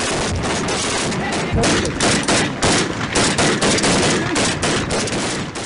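Rapid gunfire from several AK-pattern assault rifles, with single shots and bursts overlapping several times a second without a pause.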